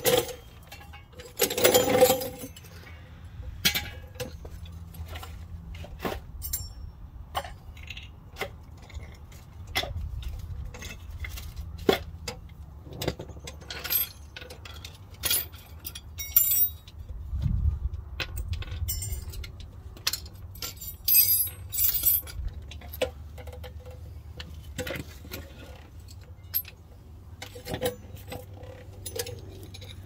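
Hand tools and metal parts clinking and knocking irregularly during front brake work, over a low steady hum.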